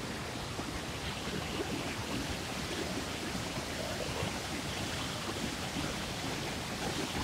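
A fast mountain stream in heavy flow, white water rushing and crashing over boulders in a steady, unbroken noise.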